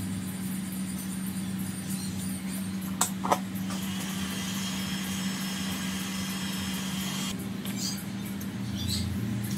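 Handheld electric heat gun running with a steady fan hum and rush of air, softening the adhesive under an iPad screen. Two sharp clicks about 3 seconds in.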